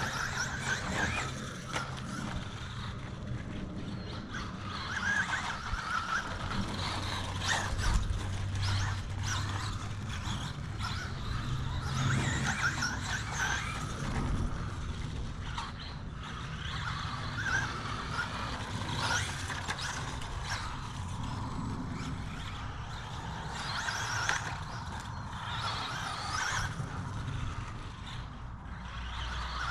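Traxxas Bandito RC buggy running on a VXL-3s brushless motor: the motor and drivetrain whine up and down in pitch over and over as the throttle is worked, with scattered sharp clicks and knocks as it runs over rough ground.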